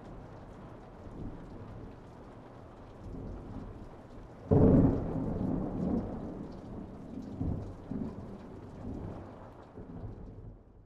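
Steady rain with a loud clap of thunder about four and a half seconds in, followed by rolling rumbles that die away before the sound cuts off at the end.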